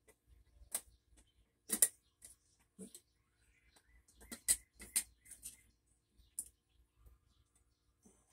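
Scattered small clicks and taps of a precision screwdriver and tiny screws as a mini amplifier's top cover is screwed on, the sharpest clicks near two seconds in and again around five seconds in.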